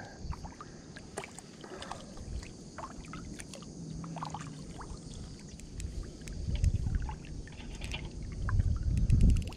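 Water lapping against a kayak hull, with scattered light clicks and knocks and a low rumble that swells about two-thirds of the way in and again near the end.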